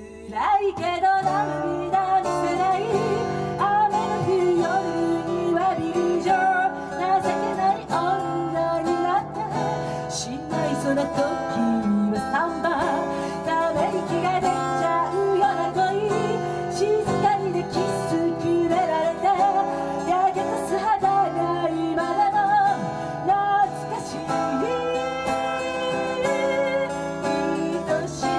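A woman singing a song live into a microphone, accompanied by her own strummed and plucked acoustic guitar. The voice and guitar come in together right at the start after a moment of quiet.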